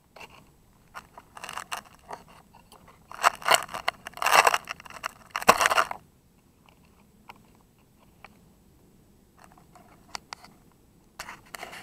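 Irregular crunching and scraping on gravel, loudest from about three to six seconds in, then scattered clicks and another burst near the end; no motor is running.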